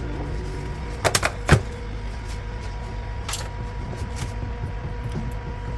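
A quick cluster of sharp knocks and clatters from kitchen utensils and bowls being handled, about a second in, then a few fainter clicks over a steady low hum.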